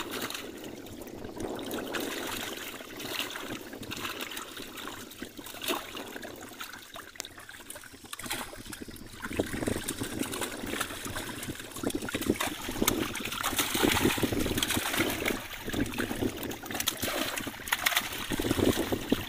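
Large live fish thrashing in a hand-held net in shallow water: continual splashing and trickling water, with many quick slaps. It grows louder about halfway through.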